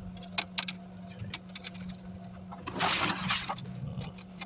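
Light plastic clicks and taps from a laptop screen bezel being handled and fitted, with a louder rustling scrape about three seconds in, over a steady low hum.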